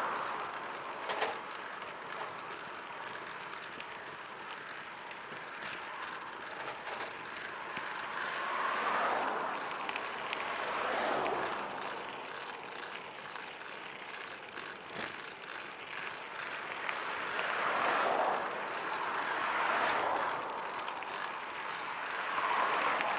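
Cars passing on the road, their tyre noise swelling and fading several times over a steady rush of wind and rolling noise from the recumbent trike.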